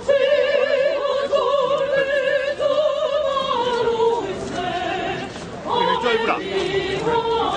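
Solo singing in an operatic style with a wide vibrato, holding long notes, with a short break about five and a half seconds in before a new phrase begins.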